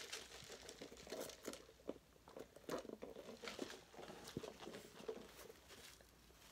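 Faint eating sounds of a person chewing and drinking, with scattered soft mouth clicks and sips from a large fountain-drink cup.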